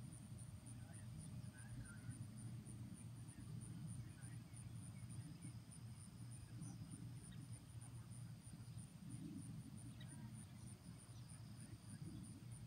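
Faint insects chirping in an even high pulse, about three chirps a second, over a low rumble.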